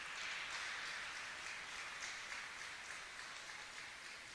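Spectators in an indoor arena applauding, a patter of many hands that swells at the start and slowly dies away.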